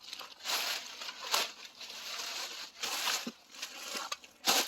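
Dry rustling and crunching of debris in uneven bursts, with a short sharp crunch near the end.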